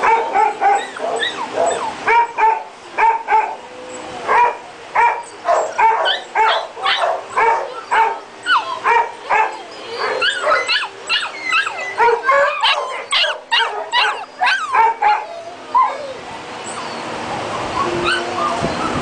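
Shelter dogs barking and yipping in their kennel runs, a fast run of sharp barks at about two a second. The barking stops about three seconds before the end, leaving a steady noise.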